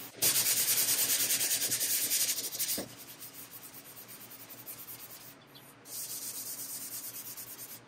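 Sandpaper on a hand sanding block rasping back and forth in quick, short strokes across the primed steel door of a 1951 Vendo 39 Coke machine, during final block-sanding before paint. The strokes are loudest for the first couple of seconds, ease off from about three seconds in, then pick up a little again near the end.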